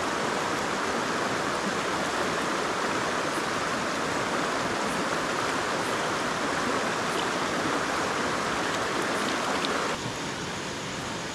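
River water flowing: a steady rush of running water with no break, dropping slightly in level near the end.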